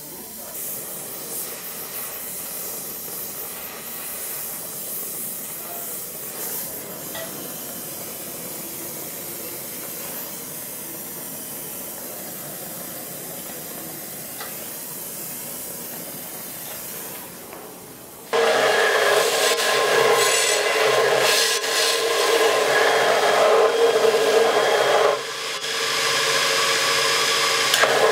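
Oxy-acetylene torch flame hissing steadily as a steel rod is heated. About two-thirds of the way through it cuts to a belt grinder, much louder, its running belt grinding a steel plate with a steady whine, lightening briefly a few seconds before the end.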